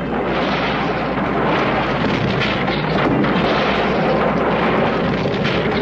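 Cartoon sound effect of a stone structure collapsing: a steady, dense rumble of crumbling, crashing rock.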